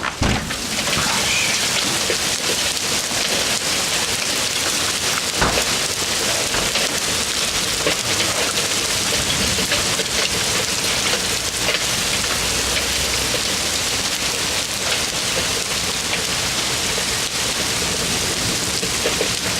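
Heavy hail pelting down in a dense, steady hiss of countless small strikes, with one sharper impact about five and a half seconds in.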